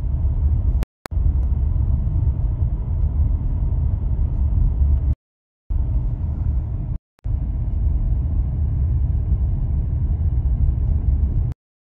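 Steady low rumble of a car driving over a dry, cracked lakebed, heard inside the cabin. It drops out suddenly to silence a few times and starts again.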